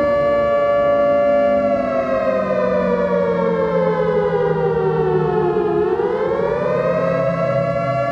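Civil defense warning siren wailing: it holds a steady pitch, slowly falls over a few seconds, then rises again near the end. A lower steady tone sounds beneath it.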